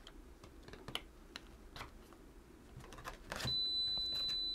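A few light clicks from handling the multimeter and its leads, then about three seconds in the KAIWEETS KM601 multimeter's continuity buzzer starts a steady high-pitched beep and holds it. The meter is in continuity mode and sensing a low resistance across its leads.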